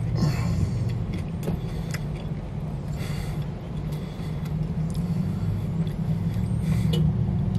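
Car engine idling, a steady low rumble heard inside the cabin, with a few faint clicks of chewing.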